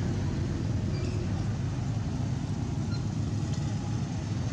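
Steady low outdoor rumble, the kind of noise that wind buffeting a microphone or distant traffic makes, with a few faint short high chirps about a second in and again near the three-second mark.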